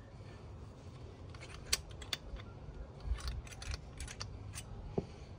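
Small, sharp metallic clicks and taps of gearbox gears and shafts being fitted by hand into a Suzuki RM85 crankcase half, irregular for a few seconds from about a second in.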